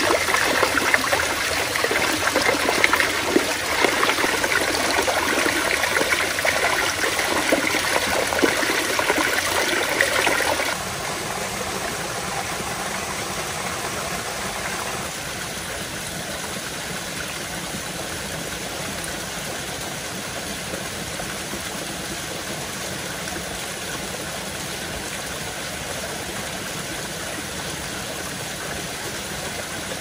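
Running water of a stream or waterfall, a steady rush and splash. The sound drops abruptly to a quieter, even rush about ten seconds in, and steps down a little again around fifteen seconds.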